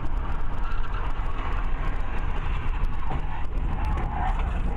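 Steady low rumble of a car driving at highway speed, tyre and engine noise heard from inside the cabin.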